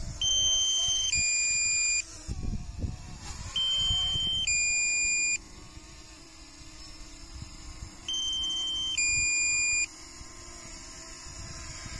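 Two-tone electronic warning alarm: a higher beep held about a second, then a lower one held about a second, repeated four times a few seconds apart over low wind rumble. It is the DJI Mini 2 drone's low-battery warning.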